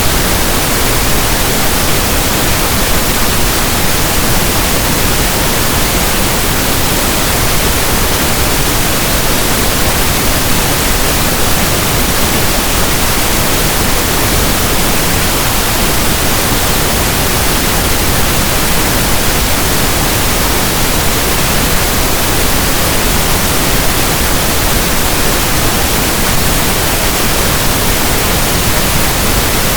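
Steady pink noise, an even hiss like a radio station not in tune.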